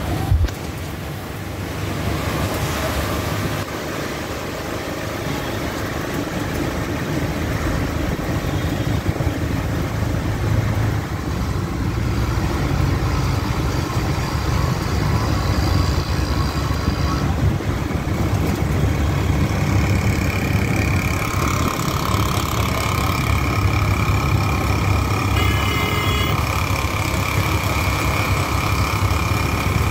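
CNG auto-rickshaw riding along, heard from inside the cab: its small engine running with a steady low rumble. A steady whining tone joins in about two-thirds of the way through.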